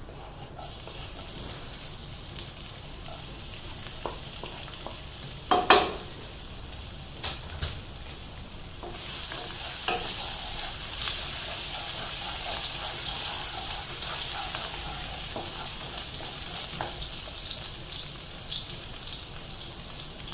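Chopped garlic and ginger sizzling in hot oil in a nonstick wok while being stirred with a wooden spatula. There is a sharp knock about six seconds in and a few lighter taps, and the sizzle grows louder about nine seconds in.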